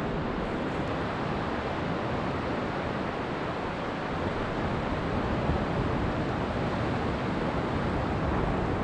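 Surf breaking along a flat sandy beach, mixed with wind on the microphone: a steady, even wash of noise.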